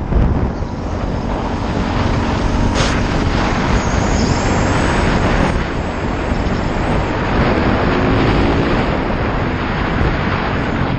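Yamaha YZ450 dirt bike riding at a steady speed, its engine running under heavy wind noise on the microphone, with the engine note coming through more clearly at times.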